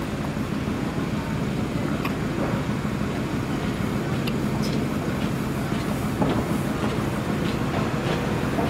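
Steady low rumble of street traffic, a vehicle engine humming without letting up, with a few faint ticks.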